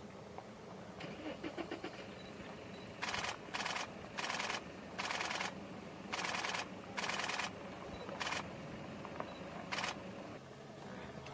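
Camera shutter firing in rapid bursts of continuous shooting, about eight short bursts spread over several seconds.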